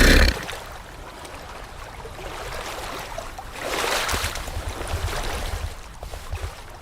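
A warthog's grunt cuts off just after the start, followed by a faint noisy rustle with no clear calls that swells briefly about three and a half seconds in, with a few low thumps.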